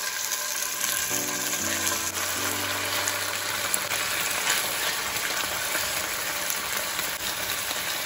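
Raw chicken strips sizzling in hot oil in a frying pan as more pieces are added to it, a steady hiss throughout.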